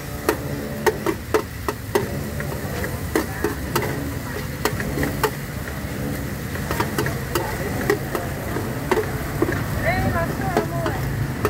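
Cooking utensils clanking and knocking against a pan or pot at an irregular pace, a few strikes a second, over a steady low hum.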